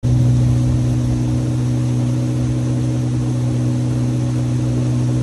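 Small boat's outboard motor running at a steady speed, heard from aboard, a constant low hum that does not change.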